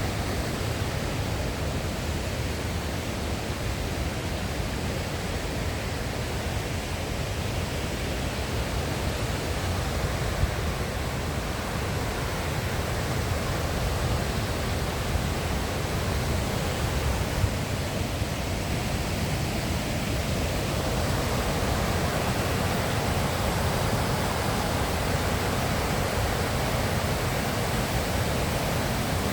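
Steady rush of a river's flowing water, growing a little fuller and louder about two-thirds of the way through.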